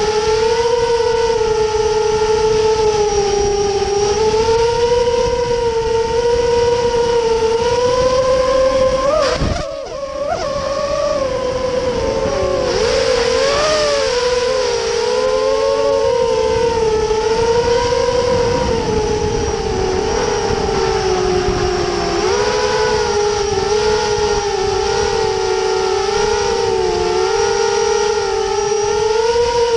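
FPV drone's electric motors and propellers whining in flight, the pitch rising and falling with the throttle and sometimes splitting into two close tones. About ten seconds in the whine drops away briefly, then warbles up and down before steadying again.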